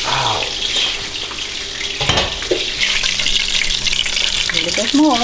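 Breaded pork schnitzel frying in hot oil in a pan: a steady sizzle with fine crackling, louder over the last couple of seconds. A single knock comes about two seconds in.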